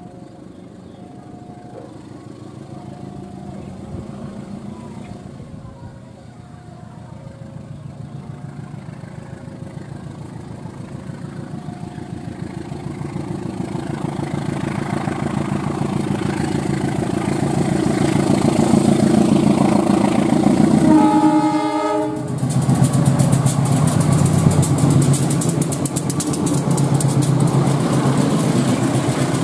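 GE CC 203 diesel-electric locomotive pulling a passenger train away under power, its engine growing steadily louder as it approaches. About three-quarters of the way through it gives one short horn blast, and then the wheels clatter loudly over the rail joints as the locomotive and coaches pass close by.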